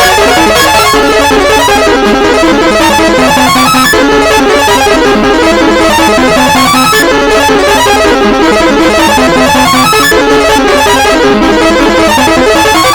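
Nigerian emergency alert alarm tone sampled and pitch-shifted into a loud, dense melody in D minor, several buzzy notes sounding at once and changing quickly, as in a YTPMV remix.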